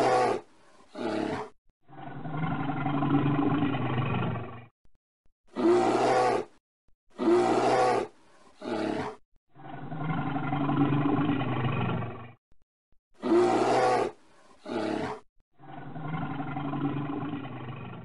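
Bear roaring and growling: two or three short, loud roars followed by a longer, lower growl lasting about two and a half seconds. The sequence repeats three times.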